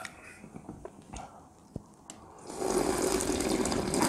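A person slurping and sucking in ramen and rice with broth straight from the edge of a stainless steel meal tray, a loud wet rush that starts about halfway through and lasts about a second and a half. Before it, a few light clicks of a spoon on the tray.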